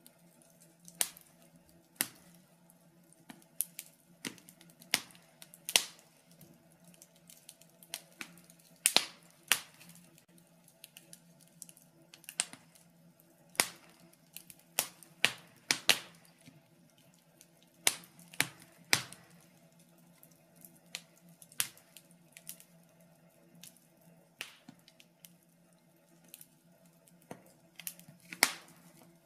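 Wood fire in a fireplace crackling: irregular sharp pops and snaps, a few much louder than the rest, over a faint steady low hum.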